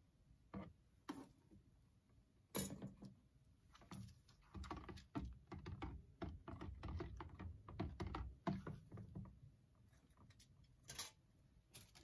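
Faint, irregular clicks and knocks of a stick blender's metal shaft being set into a plastic mixing bowl of oils and lye solution and moved about, the blender not yet switched on. The knocks come thicker and heavier in the middle.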